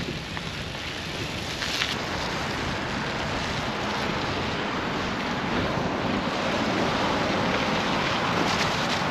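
Steady rushing noise of a bicycle ride over a snow-covered path: wind on the microphone mixed with the tyres rolling through packed snow.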